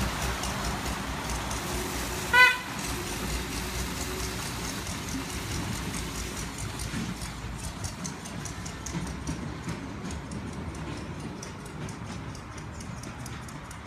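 Small minimal-gauge locomotive's engine running steadily as it pulls away, fading with distance, with one short toot of its horn about two and a half seconds in, the loudest sound.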